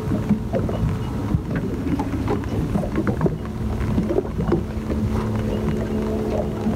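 Wind rumbling on the microphone over a steady low hum, with many scattered short clicks and knocks from handling a spinning rod and reel and a landing net while a hooked fish is played.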